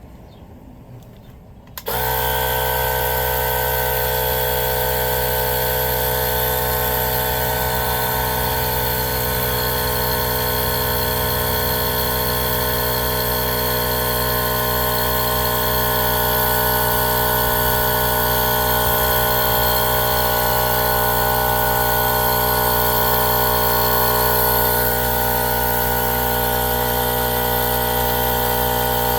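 Air compressor switching on about two seconds in and running steadily, pumping air into a mini bike tire to seat its bead.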